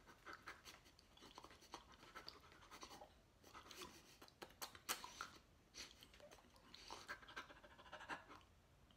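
Faint, scattered mouth clicks and soft breaths from a man imitating a dog, near silence between them.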